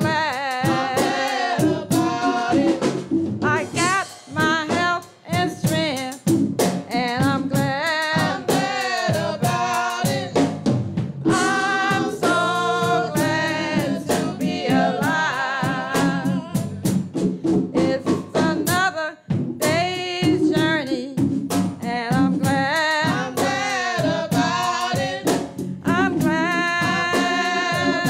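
Gospel singing by vocalists on microphones, with voices sliding and bending between notes, over a drum kit.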